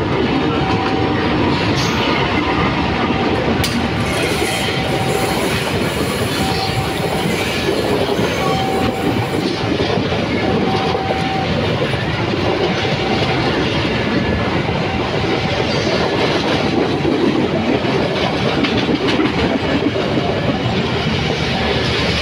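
Locomotive-hauled passenger train passing close by, its coaches rolling past with steady wheel-on-rail clatter. Over it, a level-crossing alarm repeats a short tone about every second and a half, fading out about two-thirds of the way through.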